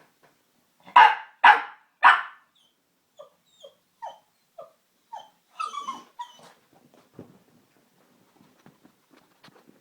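Pug puppy barking three times in quick succession, then a string of short, high whimpers.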